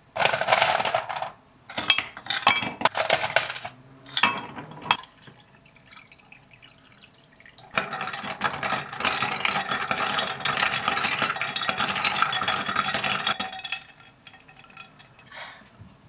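Liquid poured into a glass mug, then ice cubes clinking into it in a few sharp clusters. About eight seconds in, a metal spoon stirs the iced plum-syrup drink, with steady clinking against the ice and glass for about six seconds.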